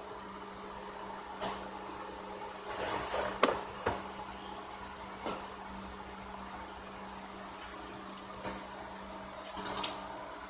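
Scattered clicks, knocks and short rustles of spice containers and garlic being handled and shaken onto a raw hog, loudest in a quick cluster near the end, over a steady low hum.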